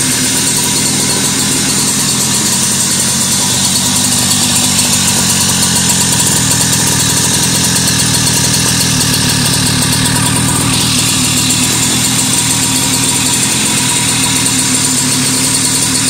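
Two-stroke moped engine running steadily. The owner says its carburettor isn't holding idle.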